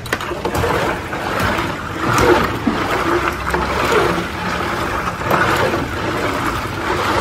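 Liquid splashing and sloshing as a large batch of Pakola soda and milk drink is poured and mixed in a big vessel, over a steady noisy street background.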